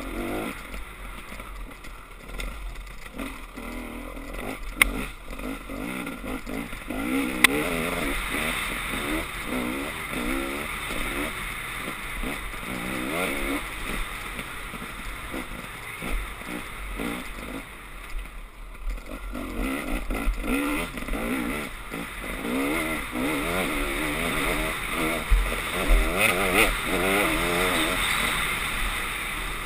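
Dirt bike engine revving up and down as the rider works the throttle and gears along a rough trail, over a steady rush of wind. It eases off briefly after the middle and then pulls hard again, with a few sharp knocks from bumps.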